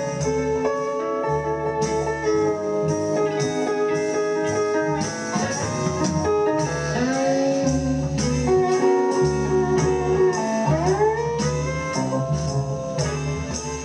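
Electric guitar played bottleneck-style in a slow blues, notes gliding up into pitch over a repeating low bass note.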